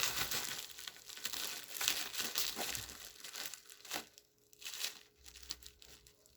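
Parcel packaging crinkling and tearing as it is opened by hand. It is busiest in the first three or four seconds and thins to a few softer rustles and clicks near the end.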